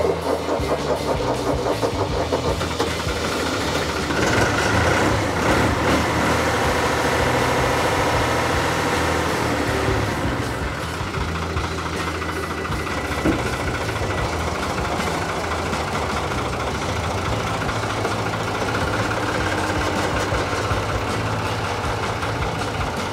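Fiat 440 tractor's diesel engine running after its fuel system has been bled of air, louder for several seconds from about four seconds in, then settling to a steady idle.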